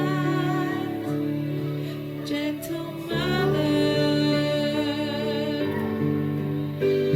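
Slow hymn music with long held notes and chords, and a sung melody line that wavers in pitch on held notes.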